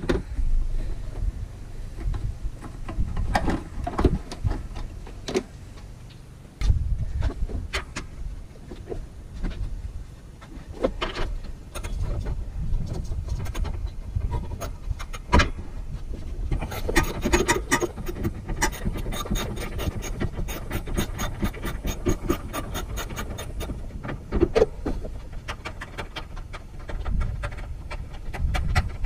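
Hand ratchet wrench clicking as nuts are worked loose in a car's engine bay, with scattered knocks of tool on metal, then a steady run of quick clicks lasting about seven seconds in the second half.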